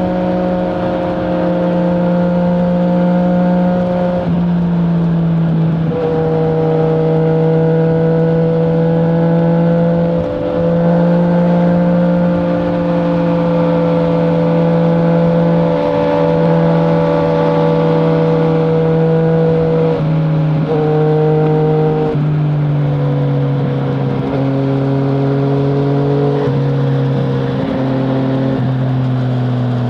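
2020 Yamaha MT-09's 847 cc inline three-cylinder engine through an Akrapovic full-system exhaust with no dB killer, running under way at a steady note. The note drops to a lower pitch several times, with a brief dip about ten seconds in.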